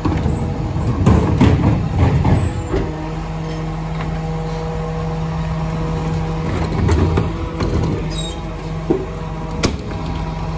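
Rear-loading garbage truck running steadily while wheelie bins are tipped into its hopper by the bin lifter. Clattering knocks of the bins in the first couple of seconds, and a few sharp knocks near the end.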